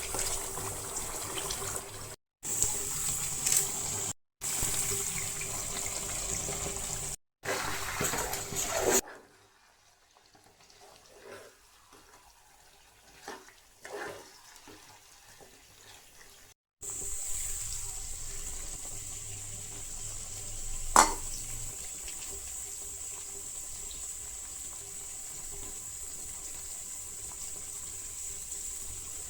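Chicken frying in oil in a pan, a steady sizzling hiss heard across several cut clips. It goes much quieter for a while in the middle, with a few small clicks, and there is one sharp knock a little after the middle.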